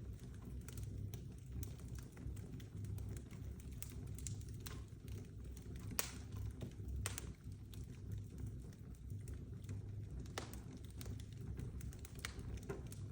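Fire crackling with irregular sharp pops, a few seconds apart and the loudest about halfway through, over a steady low rumble of burning.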